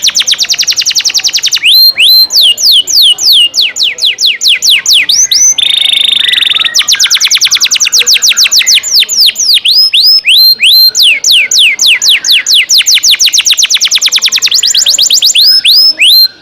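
Recorded songbird training track (masteran) for competition cage birds: long runs of high whistled notes, each sweeping steeply downward, repeated several times a second and faster in places, with a short buzzy trill about six seconds in. It cuts off abruptly at the end.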